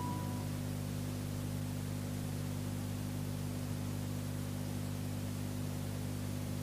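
Steady low electrical hum with a hiss over it, as from a microphone and amplification setup once the music has stopped.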